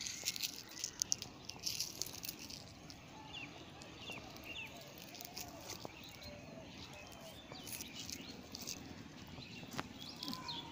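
Faint dry crackling and rustling of dried petunia flowers and seed pods being picked off the plant by hand, with a few faint bird chirps.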